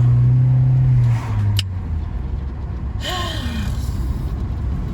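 Car cabin noise while driving: a low rumble throughout, with a loud steady low hum that stops about a second in and a sharp click about a second and a half in.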